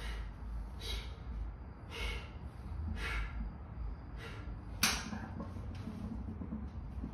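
Short hissing breaths about once a second from a lifter pressing a barbell on a bench, with one sharp click a little before five seconds in.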